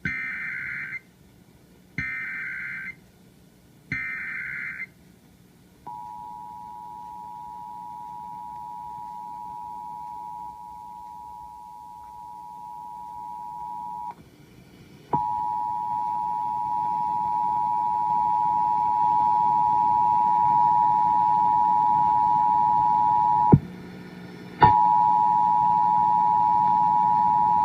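Emergency Alert System test tones on AM radio: three short buzzy data bursts of the digital header, two seconds apart, then the steady two-tone attention signal. The tone starts about six seconds in, drops out twice briefly with a click at each break, and is louder after the first break.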